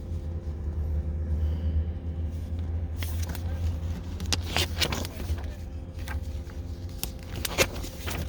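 Steady low rumble of a 2020 Mitsubishi Outlander Sport running, heard from inside the cabin, with a few sharp clicks and knocks from handling things in the car about halfway through and near the end.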